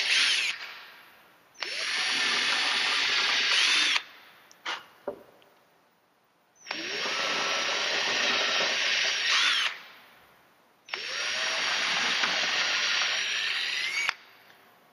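Ryobi 18-volt cordless drill boring pilot holes for mounting screws into a wooden bench. The motor winds up with a rising whine, runs for two to three seconds and spins down, three times over, after an earlier run fades out in the first second.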